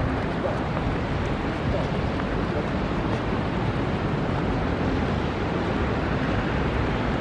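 A boat's bilge pump outlet jetting a stream of water that splashes steadily into the sea beside the hull, over a steady low rumble.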